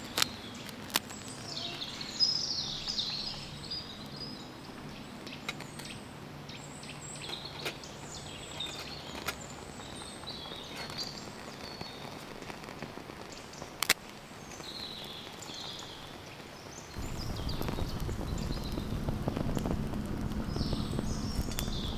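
Woodland birds chirping and singing, with a few faint snaps from twigs burning in a small steel twig stove. About seventeen seconds in, a low rushing noise comes up and holds.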